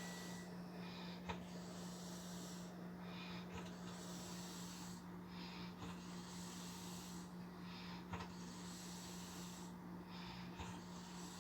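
A man snoring after drinking, one noisy breath about every two seconds, five in all, with a few short clicks. A steady low hum runs underneath.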